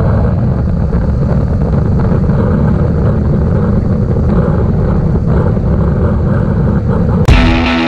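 Yamaha parallel-twin motorcycle running at a steady road speed, with wind rush on the helmet-mounted camera. About seven seconds in, electric rock guitar music cuts in suddenly.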